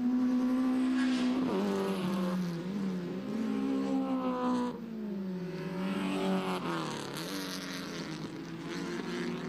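Compact race cars' engines revving on the circuit. The engine note rises and falls several times, with sharp drops in pitch about a second and a half in and again near seven seconds.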